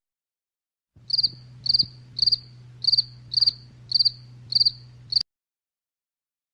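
Stock crickets sound effect, the usual cue for an awkward silence: about eight short high chirps, roughly two a second, over a low steady hum. It starts about a second in and cuts off suddenly about five seconds in.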